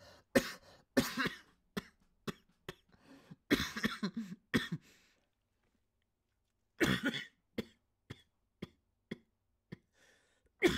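A man coughing into his fist in a fit of repeated coughs, then, after a short pause, one strong cough followed by a string of smaller coughs and throat clearing.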